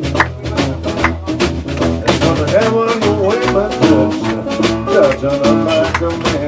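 Live acoustic blues band playing an instrumental break between verses: wailing, bending harmonica and guitar over upright bass and a snare drum keeping the beat.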